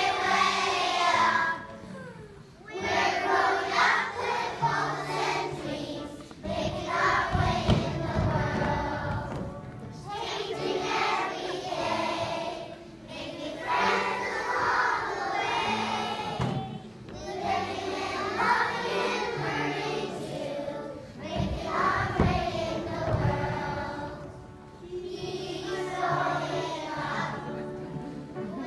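A large choir of young children singing together in unison, the song coming in phrases of a few seconds with short breaks between them.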